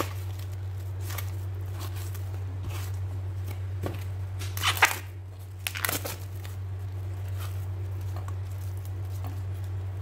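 Raw beef strips being tipped and pushed from a tray into a glass bowl: scattered wet slaps, scrapes and a few sharper clicks, the loudest about five seconds in, over a steady low hum.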